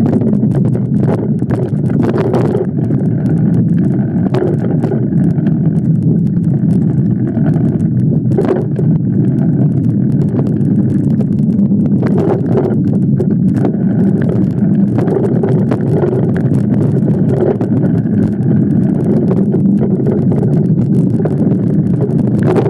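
Steady wind rush and rumble on the microphone of a camera carried on a moving mountain bike, with the bike rattling over a dirt trail and occasional knocks from bumps.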